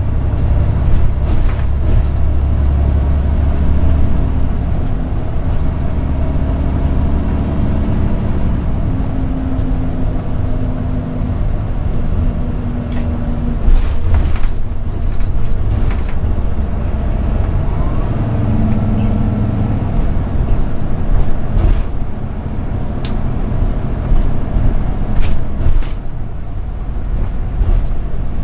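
Cummins ISX12 diesel engine of a commuter coach running at road speed, its pitch stepping up and down several times as the load and speed change, with a few short clicks over the top.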